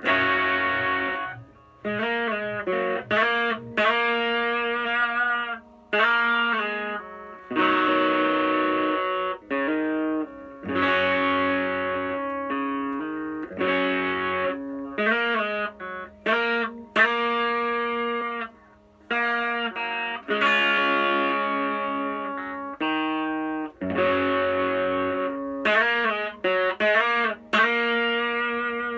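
Electric guitar played through an EVH 5150 LBX-S 15-watt tube amp head on its green channel, boosted by an Ibanez Tube Screamer Mini overdrive pedal. It plays overdriven chords and riffs in short phrases with brief stops between them.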